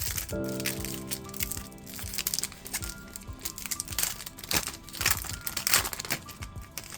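Foil booster-pack wrapper crinkling in irregular bursts as it is handled and opened, over steady background music.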